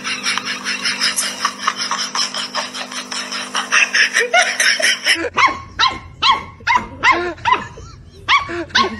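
A puppy yapping from about five seconds in: short high yips that each rise and fall in pitch, about two a second. Before the yaps there is a fast, even rhythmic patter over a steady hum.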